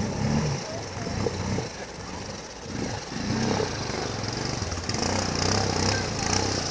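ATV engine revving up and down repeatedly in pulses, the throttle worked on and off as the quad churns through mud.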